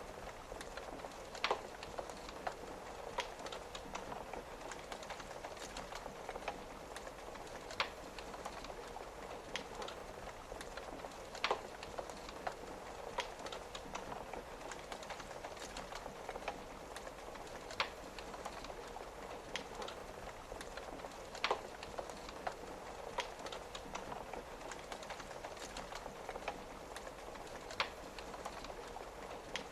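Wood fire crackling, with a handful of louder sharp pops a few seconds apart, over a steady patter of rain on a window.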